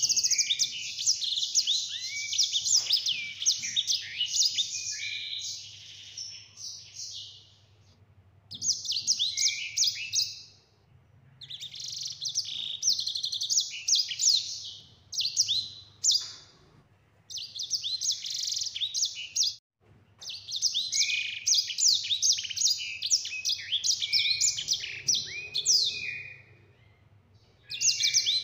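A caged sanger finch singing long rolling phrases of rapid, high trills and warbles, in stretches of several seconds broken by short pauses.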